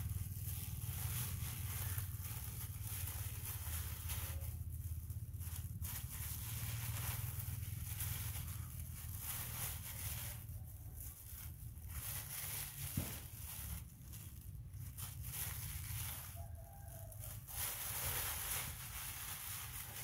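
Clear plastic bag crinkling and rustling as oranges are taken out of it by hand, in spells broken by brief pauses, over a steady low rumble.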